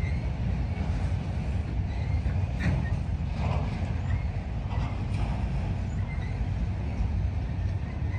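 Freight train of enclosed autorack cars rolling past: a steady rumble of steel wheels on rail, with a few scattered clanks and faint brief wheel squeals.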